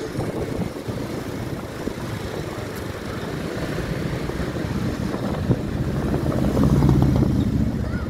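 Coach bus's diesel engine running and road noise growing louder as the bus approaches, loudest about seven seconds in as it draws alongside.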